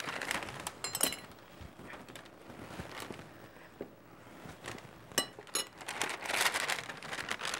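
Brown paper sack rustling and crinkling as it is handled and opened, with a few light clinks of a spoon against a glass bowl of flour.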